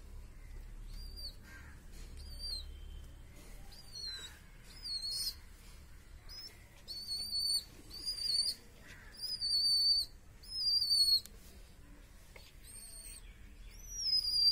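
Baby pigeon (squab) giving a long series of short, high-pitched whistling squeaks, some falling in pitch, coming more often and louder from about halfway through.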